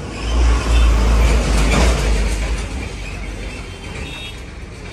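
Street traffic: a motor vehicle passes close by. Its low engine rumble and road noise swell about half a second in and fade away after about two and a half seconds.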